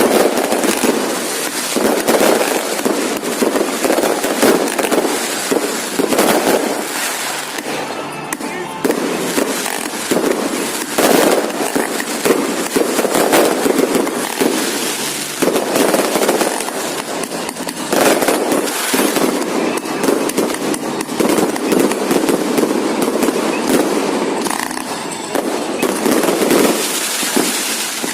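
Fireworks display: a dense, continuous barrage of bangs and crackling, swelling and easing every few seconds.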